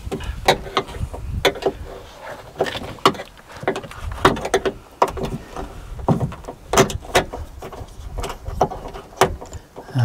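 Irregular clicks, knocks and rattles of hands and tools working a part loose inside a car's bare metal door shell, with its trim panel off.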